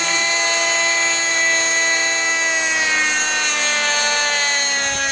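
Nitro engine and rotors of a G-Smart 18-size RC helicopter running at flying speed: a steady, high-pitched whine that drops a little in pitch about halfway through.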